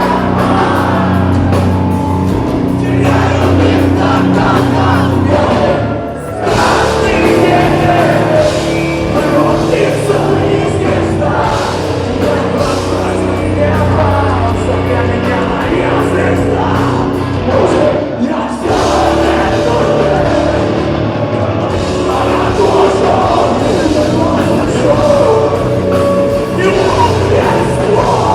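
Heavy rock band playing live, with a singer's voice over loud, dense music; the sound dips briefly about six seconds in.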